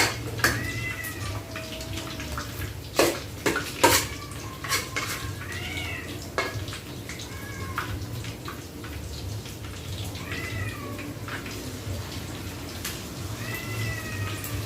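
A cat meowing repeatedly, short rising-and-falling calls every few seconds. About three to four seconds in come a few sharp clinks of metal utensils against a pan.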